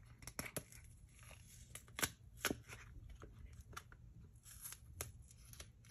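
A flexible silicone mould being bent and peeled as melted-crayon bear shapes are popped out of it: scattered sharp clicks and crackles, the loudest two about two seconds in, half a second apart.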